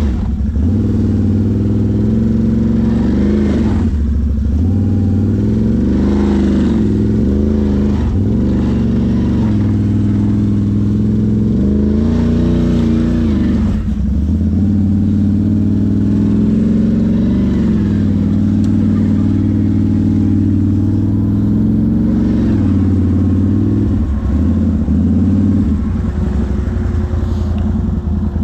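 ATV engine running under changing throttle, its revs rising and falling over and over. It settles to a steadier speed near the end.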